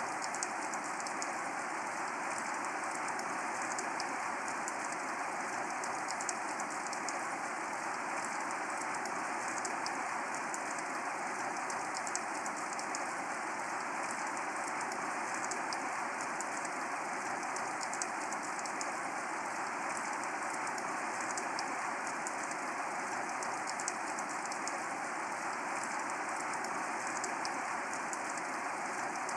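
Steady rain falling, an even hiss dotted with the ticks of individual drops.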